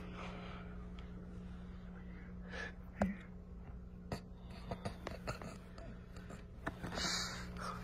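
Faint scattered clicks and rustles of hands handling small things close to the microphone, over a steady low hum. A sharper click comes about three seconds in, and a short breathy hiss about seven seconds in.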